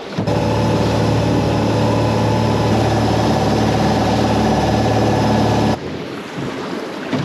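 Boat engine running at a steady speed, starting abruptly just after the start and cutting off sharply a little under six seconds in, leaving wind and sea.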